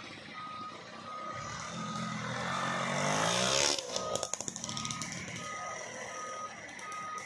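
A truck's reversing alarm beeps at a steady pace, about three beeps every two seconds. About a second in, a truck engine revs up, rising in pitch for a couple of seconds with a growing hiss that cuts off abruptly, followed by a brief rattle.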